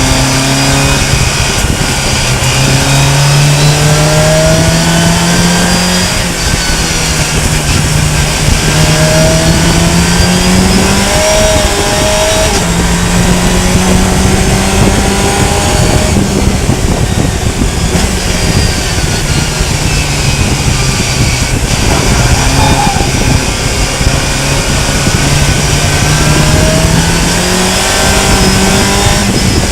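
Fun Cup race car engine running hard, its pitch climbing through each gear and dropping back at each upshift, several times over, under a steady hiss of tyre and spray noise from the wet track.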